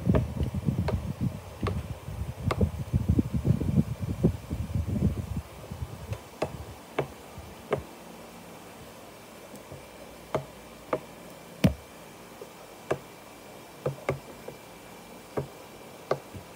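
Bubbles of a silicone pop-it fidget toy being pressed in one by one with a fingertip, each giving a short sharp pop, at irregular spacing of about one a second. A dense low rumble runs under the pops for the first five seconds or so, then stops.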